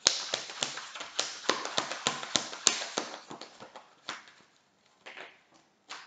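A deck of tarot cards being shuffled by hand: a quick run of card clicks and taps for about four seconds, then a few scattered ones.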